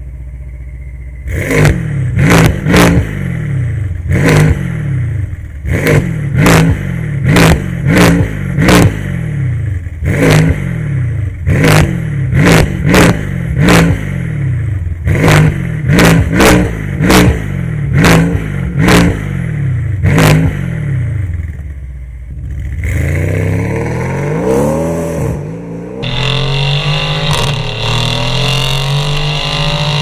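Mercedes-AMG C63's twin-turbo 4.0-litre V8 through a Fi Exhaust valvetronic cat-back system, blipped from idle in a rapid run of about twenty short sharp revs, roughly one a second. Near the end comes one longer rev that climbs and falls, and then the engine runs steadily as the car drives off.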